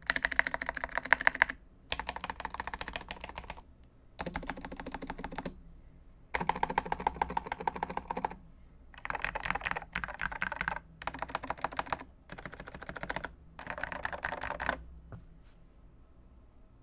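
Computer keyboard being typed on in fast runs of keystrokes, each run lasting a second or two with short pauses between, stopping about fifteen seconds in.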